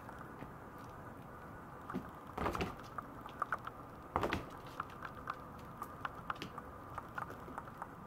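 A Maltese puppy's paws and claws on a plastic mesh pee tray: scattered light clicks and taps, with two louder scuffling bursts about two and a half and four seconds in.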